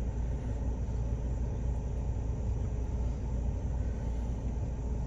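Steady low rumble of an idling vehicle engine, running evenly with no change.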